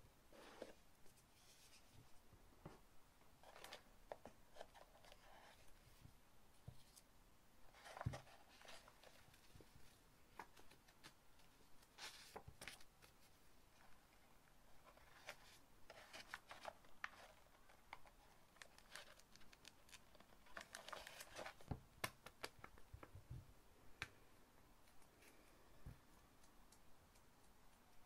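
Faint paper rustling and crinkling in scattered bursts as a stack of paper scraps is leafed through and drawn out of a cardboard box, with light taps of paper and cardboard and one sharper tap about eight seconds in.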